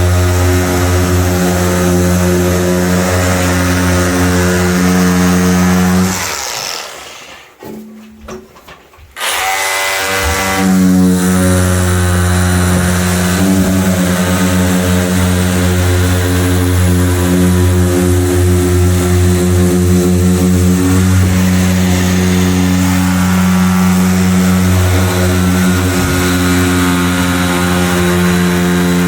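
Electric power tool cutting out plasterboard ceiling, its motor running with a steady hum. It stops about six seconds in and starts again about three seconds later.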